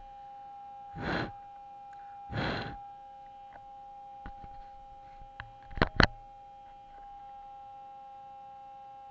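Hands handling an RC boat's hull, heard close through its onboard camera: two short rushes of noise, then two sharp knocks a fraction of a second apart about six seconds in, over a faint steady electronic whine.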